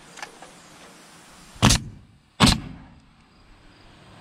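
Nail gun firing twice, about three-quarters of a second apart, driving nails through a wooden batten strip into barn siding.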